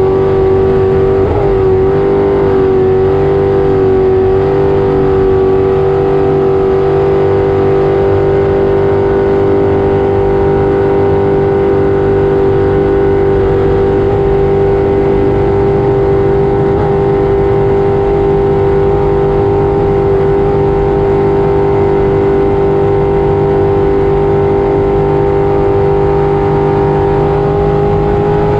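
Racing jet boat's engine running hard at a steady, high pitch, heard from on board, with a brief wobble in pitch a second or two in and a slight dip near the end.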